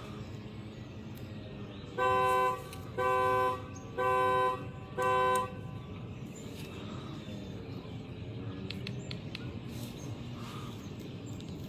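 Audi's car horn honking four times, about a second apart, each honk a short steady blare: the car alarm set off remotely with the key fob.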